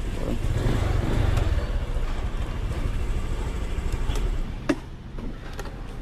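Motorcycle engine running at low road speed with wind rumble. The sound drops away about four and a half seconds in, followed by a few sharp clicks.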